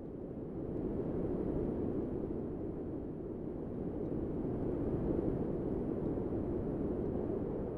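A steady low rushing noise with no distinct events, swelling a little about a second in.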